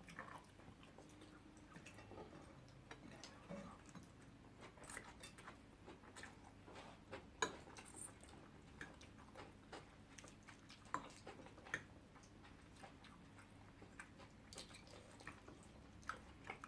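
Faint close-up eating sounds: chewing with scattered sharp mouth clicks and smacks, a few louder ones about seven, eleven and twelve seconds in.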